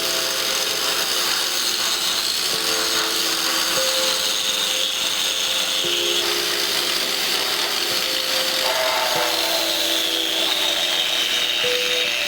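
A power tool, likely an angle grinder, running on metal, a high whine whose pitch dips and recovers a few times, under lofi background music whose chords change every two to three seconds.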